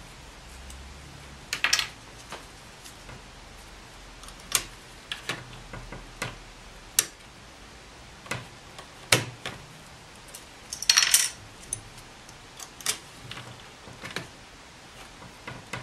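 Plastic keycaps being pulled off a Sun Type 5 mechanical keyboard: scattered clicks and light clatters, with a short rattling cluster about 11 seconds in.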